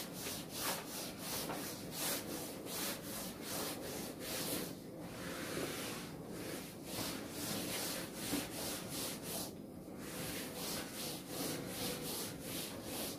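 A duster wiping chalk off a chalkboard in quick back-and-forth rubbing strokes, about two to three a second, with short breaks about five and ten seconds in.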